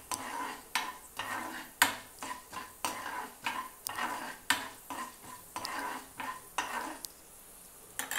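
A steel ladle stirring and scraping across a non-stick pan while chana dal, urad dal and mustard seeds fry in oil with a light sizzle. The scrapes come about twice a second and stop about seven seconds in.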